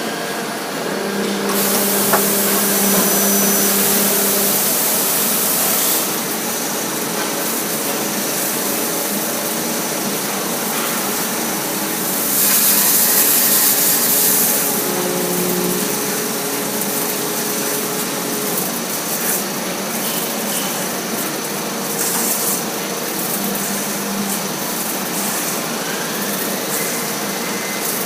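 Machine tool cutting threads with an ISCAR 10-corner threading tool, with a continuous hiss of jet-fed cutting oil and a steady hum. Louder hissing surges come about a second in and again around 12 seconds.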